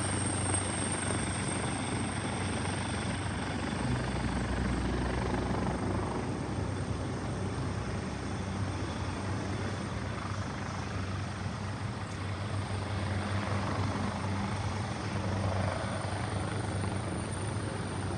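Aircraft engines running steadily, a continuous noise with a low hum underneath.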